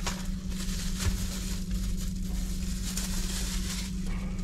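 Rustling and light handling noises from unpacking small camera accessories, over a steady low hum.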